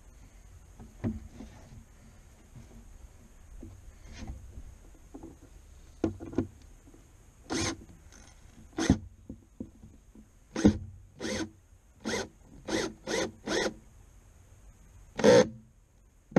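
Cordless drill/driver running in about nine short trigger bursts, driving screws into a wooden console panel. The bursts come mostly in the second half, after a few light knocks from handling.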